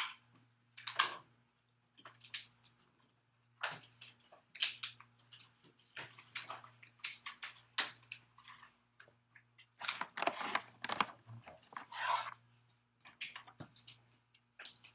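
Paper letter cards and sheets being handled on a table: irregular rustles and small clicks, over a faint steady hum.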